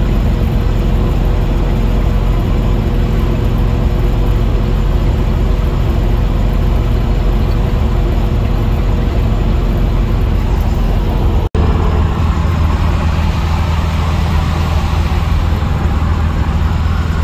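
Steady rumble of a car's engine and tyres at highway speed, heard from inside the car. It cuts out for an instant about two-thirds of the way in, and the rumble after is deeper and hissier.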